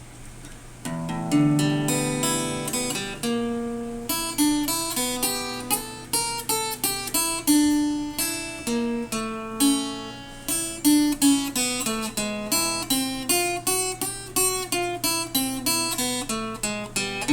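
Acoustic guitar picking an instrumental intro, single notes plucked in quick succession over a sustained low note, starting about a second in.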